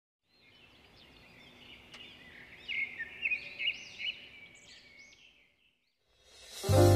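Birds chirping and twittering, with a run of louder quick chirps in the middle before fading out. Music starts near the end.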